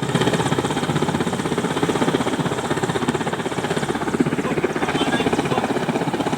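Helicopter rotor chopping with a steady, fast pulsing throb.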